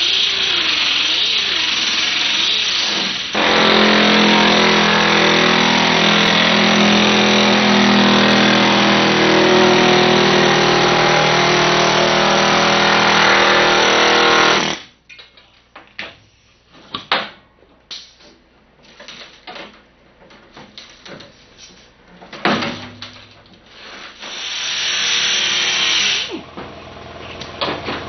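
Vertical sander with a 36-grit fiber disc grinding rust off a steel car door bottom. Then comes a long, steady run of a pneumatic air hammer with a sheet-metal ripper cutting through the door's sheet metal, which stops suddenly about fifteen seconds in. It gives way to scattered short knocks and bursts, and a few more seconds of grinding near the end.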